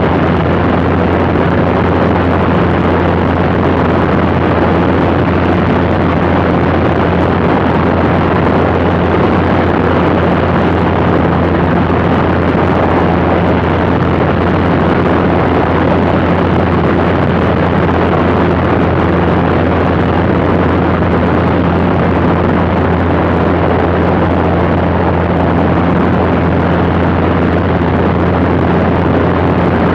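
Cessna Skylane's piston engine and propeller running steadily in flight, a constant low drone under a loud, even rush of wind.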